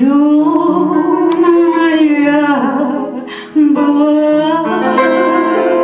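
A woman singing a slow Russian folk song to upright piano accompaniment, holding long notes: one for about two and a half seconds, then after a brief dip a second long note from about three and a half seconds in.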